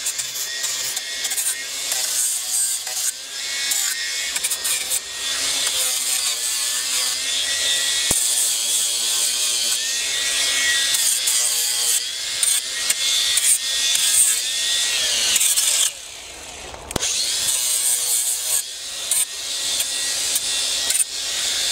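Cordless angle grinder with a sanding disc running against pallet wood, its motor whine over the rasp of the disc sanding the points of the pickets. It stops for about a second about three-quarters of the way through, then starts again.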